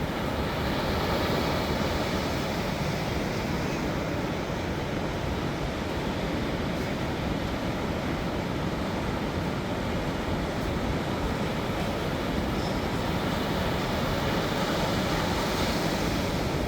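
Ocean surf: a steady rush of breaking waves, swelling a little about a second in and again near the end.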